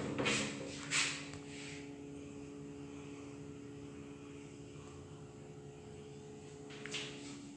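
Steady low mechanical hum in a small tiled room, with a few soft knocks in the first couple of seconds and another near the end.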